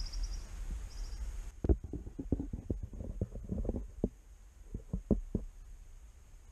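Muffled handling noise from a camera being worked down inside a hollow tree trunk. A run of small knocks and scrapes against the wood starts about a second and a half in, and a few more follow near the end.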